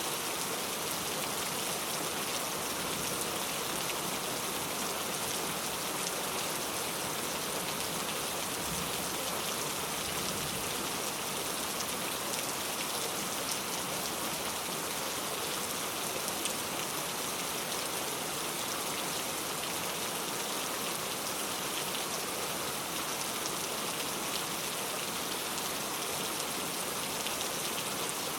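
Heavy rain falling steadily, an even, unbroken hiss with no thunder or single drips standing out.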